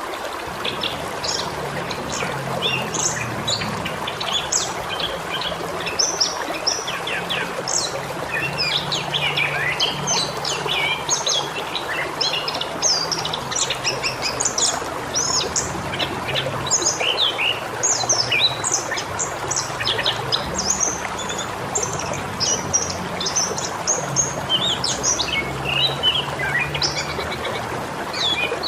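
Many small birds chirping and twittering in quick, overlapping calls over the steady rush of a waterfall.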